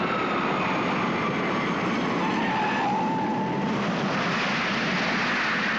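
Jet airliner landing: engine whine falling steadily in pitch over a loud rush of air and engine noise. About four seconds in, the rush turns brighter and hissier as the main gear nears the runway.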